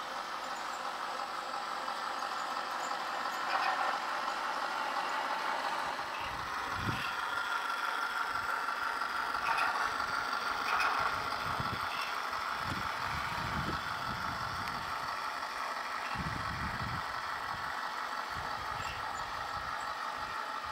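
Heng Long 1/16 scale RC Panzer III running on grass: a steady whine from its electric drive motors and stock plastic gearboxes, with its Impact metal tracks rattling. Irregular low rumbles come and go through the middle.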